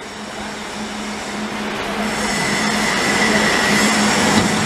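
Floor-deck roll forming machine running, a steel deck sheet feeding through its forming rollers: a steady mechanical hum and metallic rush that grows gradually louder, with a thin high whine coming in about halfway through.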